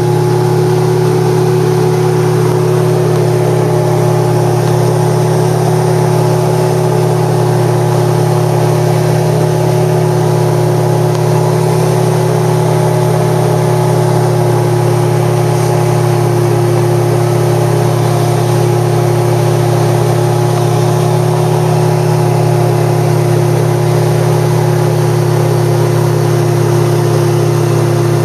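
CFM Streak Shadow light aircraft's engine running at a steady cruise setting, heard from inside the cockpit, with an even hiss over it and no change in pitch or level.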